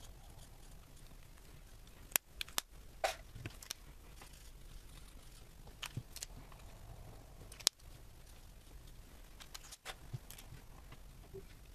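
Soft room noise broken by scattered sharp clicks and taps of plastic alcohol markers being capped, picked up and handled over a wooden tabletop, the sharpest click about three quarters of the way through.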